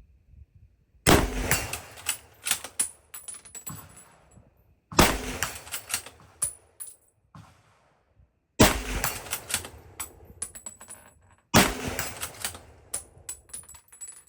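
Four rifle shots from a Smith-Corona M1903A3 bolt-action rifle in .30-06, about three to four seconds apart, each followed by smaller clicks and clatter of the bolt being worked to chamber the next round.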